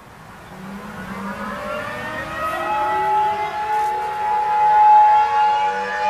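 Civil defense siren winding up from silence, its pitch rising over the first few seconds and then holding a steady tone, with several other tones still gliding up beneath it. It is the opening alarm of an emergency alert broadcast.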